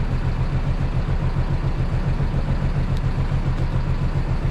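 A fishing boat's inboard engine running steadily, with an even low pulse.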